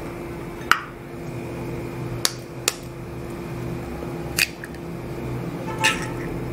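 Eggs being cracked on a knife blade and broken into a stainless steel tumbler: five sharp clicks of shell on metal, a couple of them with a short ring. A steady low hum runs underneath.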